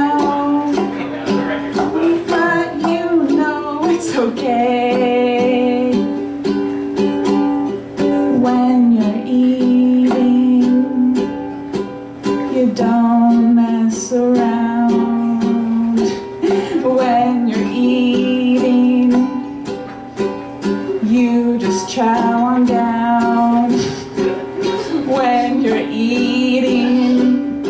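A woman singing while strumming a ukulele in steady chords.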